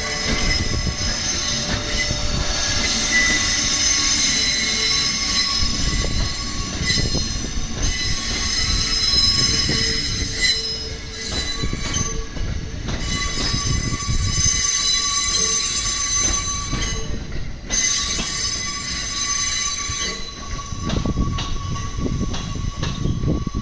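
EF81 electric locomotive hauling an E531 series electric multiple-unit set, wheels squealing in several high-pitched tones over the steady low rumble of the train rolling on the rails.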